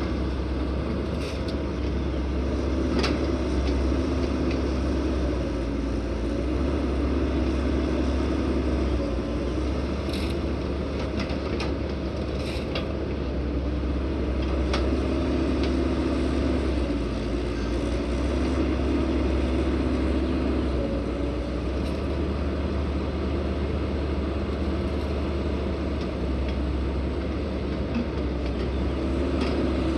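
Heavy diesel truck engine running steadily with a deep rumble that swells and eases slowly, with a few faint clicks or knocks.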